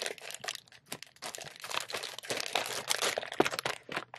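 Toblerone bar's wrapper crinkling and crackling as it is handled and pulled open, a dense run of crackles with one sharper snap about three and a half seconds in.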